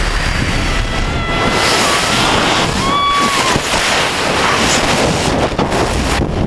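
Loud, steady freefall wind rushing over the camera's microphone just after a tandem skydive exit. A short high-pitched scream cuts through it about three seconds in.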